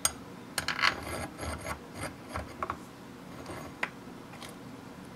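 Bolts and nylock nuts being fitted by gloved hands to the end cap of a Coats tire machine's rim clamp air cylinder: a run of irregular metal clicks and short scrapes, densest in the first three seconds, with one more click about four seconds in.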